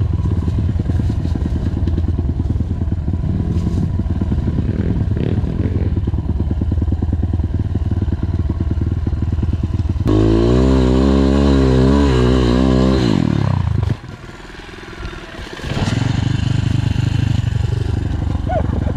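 MRF 140 RC pit bike engine running at low revs, then revved hard about halfway through under load on a steep climb, the revs sagging before the sound drops away suddenly a few seconds later. After a brief lull an engine runs again near the end.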